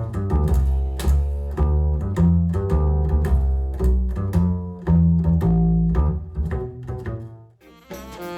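Instrumental music led by a plucked double bass with cello-like strings, the bass notes deep and sustained. About 7.5 s in it dies away briefly, and a new passage with bright jingling percussion starts.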